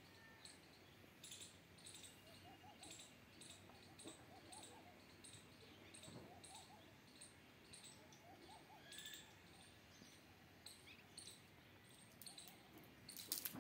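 Faint outdoor birdsong: quiet high chirps about twice a second and a low call of a few short notes repeated every couple of seconds, with a brief burst of clicks near the end.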